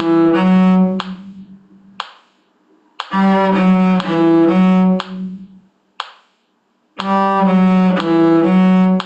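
Bowed string instrument playing a short four-note phrase starting on G, slowly and evenly, repeated three times with pauses between: a demonstration for copying by ear.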